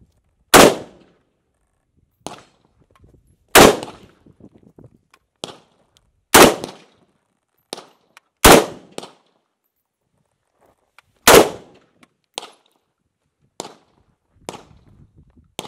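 Zenith Z43P, an HK93-pattern semi-automatic in .223, firing Silver Bear ammunition one shot at a time. Five loud, sharp reports come two to three seconds apart, each with a short echo, and fainter sharp reports fall in between.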